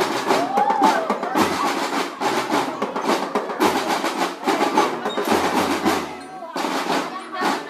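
Marching drum band percussion playing: snare drums rattling in loud phrases broken by short pauses, with deep bass drum strokes now and then.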